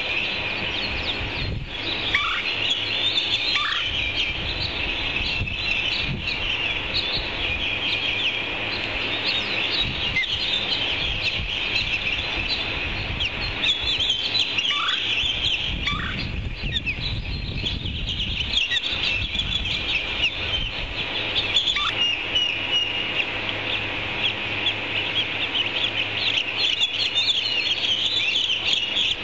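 Osprey chicks peeping and chirping steadily during feeding, a dense run of rapid, high-pitched notes, with a few short falling calls now and then.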